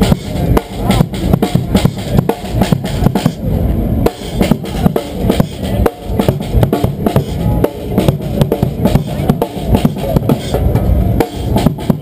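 Drum kit played live in a fast, busy groove of closely spaced bass drum and snare strokes.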